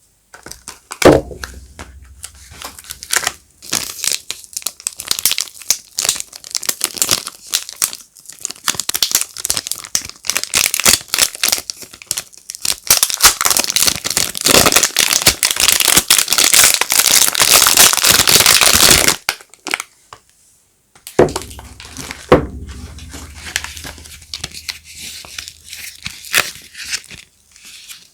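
Wrapping on bars of soap being crinkled and torn open by hand, with a long dense stretch of crackling near the middle. A couple of dull knocks come after a short pause, followed by softer crinkling.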